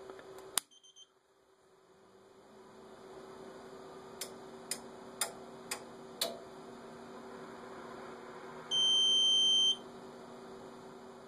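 Homemade Arduino-controlled 4000 W amplifier dummy load powering up: a click of its power switch, then a steady electrical hum comes up. Five sharp clicks about half a second apart come during its system check, and then its buzzer gives one loud beep lasting about a second.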